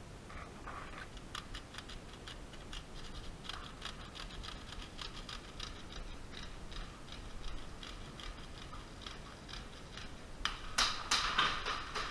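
Airsoft magazine being reloaded by hand: a long run of small, quick clicks. Near the end, louder sharp cracks come in, BBs hitting nearby.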